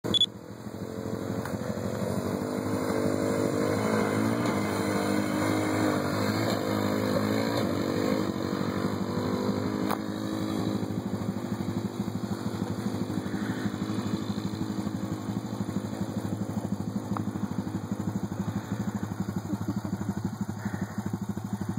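Quad bike (ATV) engines. For the first several seconds one quad revs up and down, its pitch repeatedly rising and falling. A steady idling engine runs underneath, and from about ten seconds in only that idle remains.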